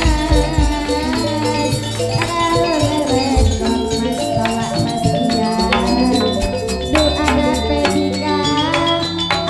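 Gamelan ensemble playing a gending: sustained pitched metal notes and a wavering melody line over a rattling percussion part, with deep drum strokes about a third of a second in and again about three and a half seconds in.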